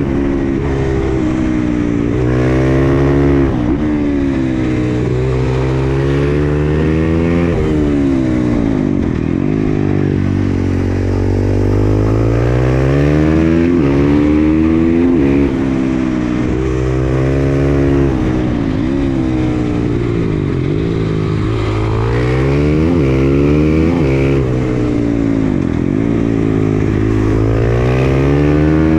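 KTM 500 EXC-F single-cylinder four-stroke engine with an FMF exhaust, pulling hard through the gears: revs climb steeply and fall back at each shift, with longer falls on engine braking, over and over.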